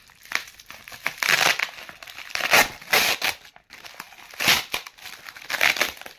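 Tightly packed parcel wrapping being crinkled and torn open by hand, in several separate rustling bursts.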